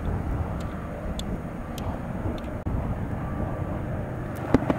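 GE C44 and EMD SD40-2 diesel freight locomotives working hard upgrade: a steady low engine rumble. A sharp click about four and a half seconds in.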